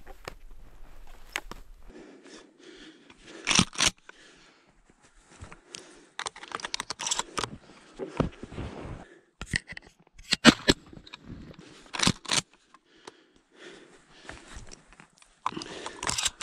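Irregular crunching and rustling: footsteps in snow, with gloves and clothing brushing against the camera's microphone, including several sharp handling knocks.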